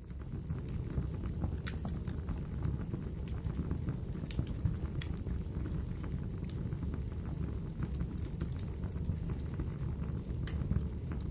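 Wood fire crackling: a steady low noise of burning under scattered sharp pops and crackles.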